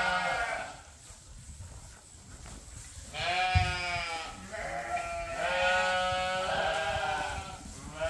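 Suffolk ewes bleating. One call trails off at the start, and after a quiet couple of seconds a bleat comes about three seconds in. A longer, wavering bleat follows and runs on until shortly before the end.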